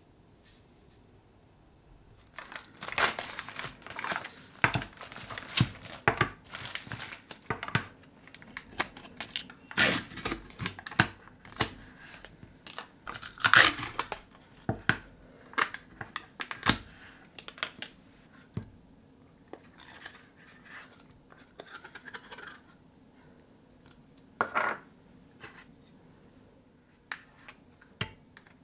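Foil lids being peeled off plastic yogurt cups: repeated tearing and crinkling of the foil. A few sharp knocks come near the end.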